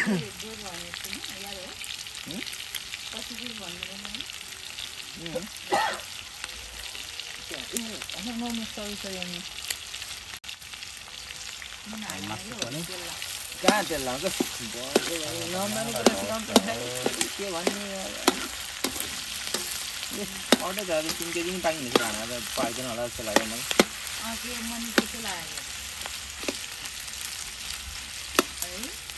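Food sizzling steadily as it fries in a pan, with a stirring utensil clicking and scraping against the pan many times.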